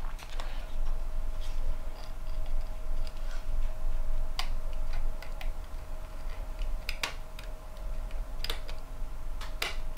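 X-Acto hobby knife blade scoring a copper trace on a printed circuit board: scattered small ticks and scratches as the blade scrapes through the copper.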